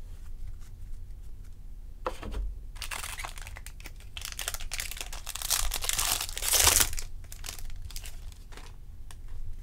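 Crinkling and tearing of a trading-card pack's wrapper being torn open by hand. There is a short scrape about two seconds in, then a long stretch of crackling that is loudest just before the seventh second and then dies down to a few small rustles.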